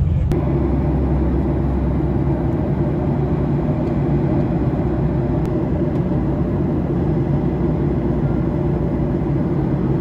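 Steady, even rumble of a jet airliner's cabin in flight. It replaces a brief moment of coach-bus running noise that cuts off abruptly about a third of a second in.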